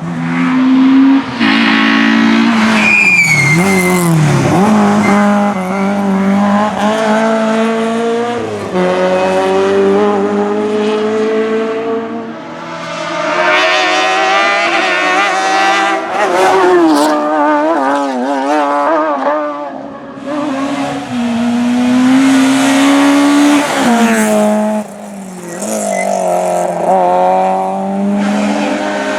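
Race car engines at full throttle, revving up and dropping back at each gear change, with tyre squeal. The sound dips a few times, as one car gives way to the next.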